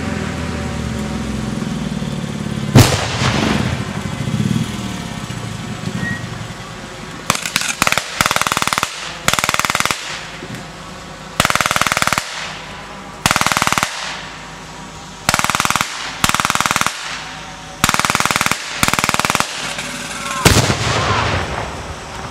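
A vehicle engine runs, then a pyrotechnic explosion goes off with a sharp blast about three seconds in. About nine bursts of machine-gun fire follow, each lasting about a second, and a second explosion blasts near the end.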